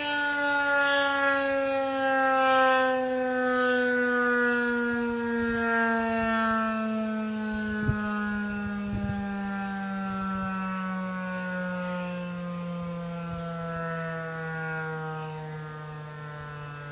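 Federal Signal 2001-130 single-tone electromechanical warning siren winding down after its test, one steady tone sliding slowly and evenly lower in pitch as the rotor loses speed.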